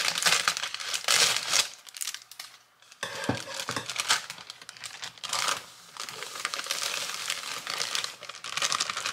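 Thin plastic bag crinkling in bursts as it is handled, snipped open with scissors and shaken to empty dry cake mix into a bowl, with a short lull about two seconds in.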